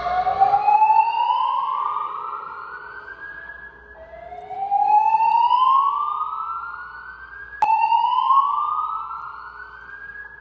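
Fire alarm voice-evacuation speakers sounding the slow whoop evacuation tone. It is three rising sweeps, each climbing for about three and a half seconds before starting again from the bottom, with a sharp click as the third begins.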